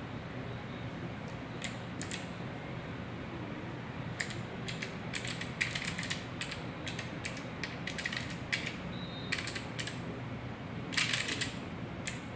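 Mechanical keyboard keys being pressed: sharp scattered clicks, single and in quick runs, beginning about a second and a half in, with a dense flurry of keystrokes near the end.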